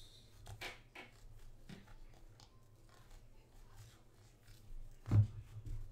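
Football trading cards being flipped through by hand: a run of soft flicks and slides as the cards slip off one another, with one louder thump about five seconds in.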